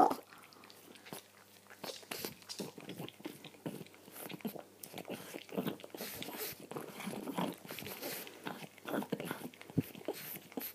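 A dog chewing close to the microphone: a long run of faint, irregular wet clicks and crunches, starting about a second and a half in.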